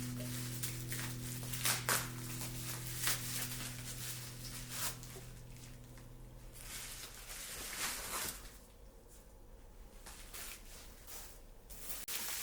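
Light clicks and short rustles of small objects being handled, over a steady low hum that stops about seven seconds in.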